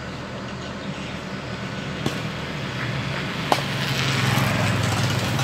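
Crane truck's engine running steadily to drive its knuckle-boom crane, growing louder in the second half. Two sharp clicks stand out, about two and three and a half seconds in.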